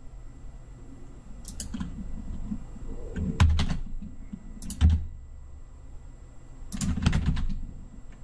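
Computer keyboard keys and mouse buttons clicking in short clusters: four or so bursts spread a second or two apart, each with a dull knock beneath the clicks.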